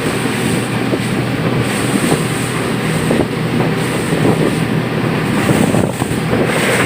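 An engine running steadily with a low, even drone, mixed with noise that sounds like wind.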